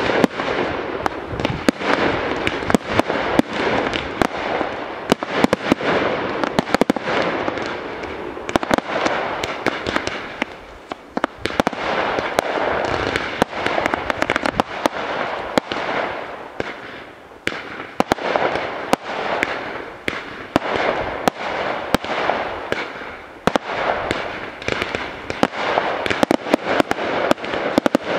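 Aerial fireworks display: a dense, continuous barrage of sharp bangs and crackling from shell bursts over a steady hiss of fountains and comets, easing briefly twice before picking up again.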